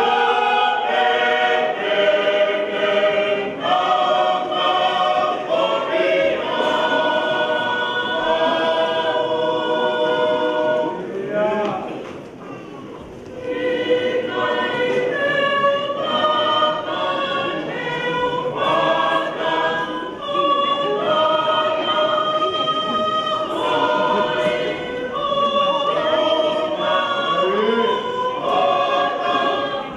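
Large choir of men and women singing a hymn together in parts, with long held chords. The singing thins and drops in level for about a second and a half, a little before halfway, then comes back at full strength.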